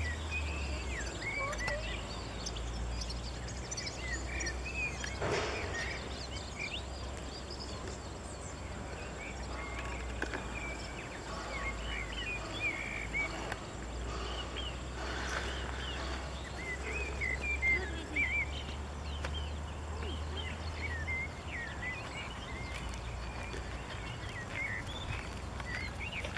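Outdoor ambience of many small birds chirping and singing, over a steady low wind rumble on the microphone.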